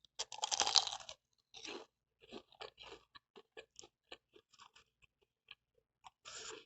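Biting into a freshly fried chicken sambosa with a thin, crisp pastry wrapper: a loud crunch about a quarter second in, then chewing with many small crackles, and another crunchy bite near the end.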